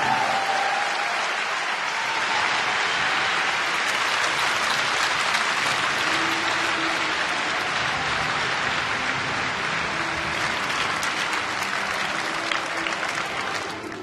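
Arena audience applauding steadily, a dense crackling clapping that cuts off abruptly near the end.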